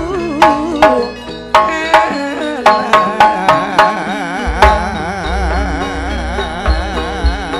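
Madurese gending music: a singing voice with strong vibrato over sharp hand-drum strokes, with a deep pulsing low beat coming in about halfway through.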